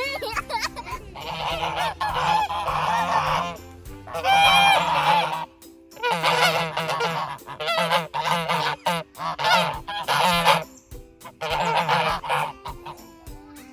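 Domestic geese honking in a long run of loud, overlapping calls, burst after burst with short gaps between.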